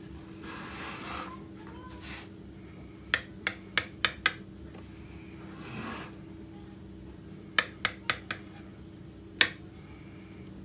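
A kitchen knife trimming excess raw pastry around a tart tin: two brief scraping rustles of the blade through the dough and a series of sharp clicks and taps of the knife in two quick clusters.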